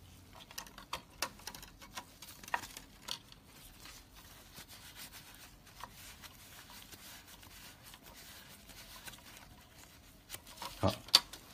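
Lint-free paper wipe rustling and rubbing against a printer's flat ribbon data cable as gloved hands clean its aluminium contacts, with scattered soft clicks. Two louder short knocks come near the end.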